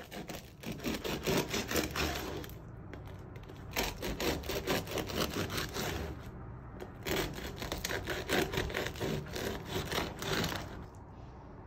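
A long bread knife sawing through the crisp crust of a sourdough campagne loaf, in three spells of quick back-and-forth crackly strokes, dying down near the end.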